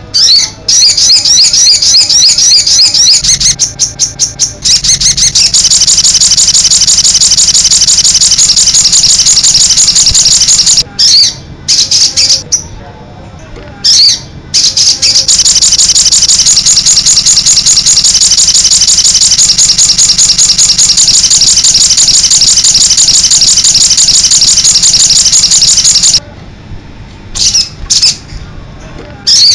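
Crimson sunbird (sogon) singing vigorously: a loud, high, rapid twittering song that breaks off briefly a couple of times, then runs unbroken for about ten seconds before stopping near the end.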